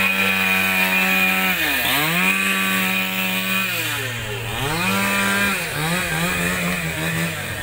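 Chainsaw running at high revs while cutting wood. Its pitch sags and recovers twice, then wavers near the end.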